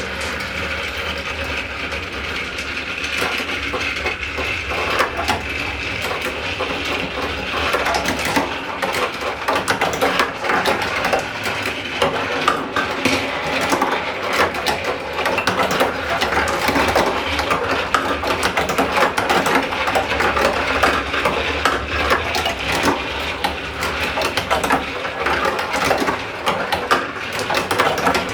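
Marbles clattering and clicking along a plastic toy marble run, over the steady whir of a small battery toy motor.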